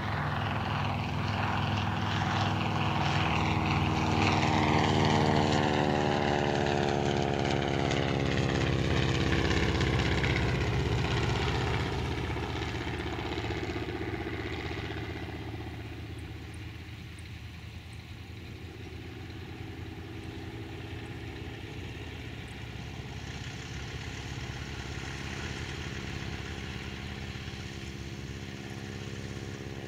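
Fleet Model 7 biplane's radial engine throttled back for landing, its pitch falling as it comes down and rolls past. It then settles to a steady, quieter idle as the biplane taxis on grass.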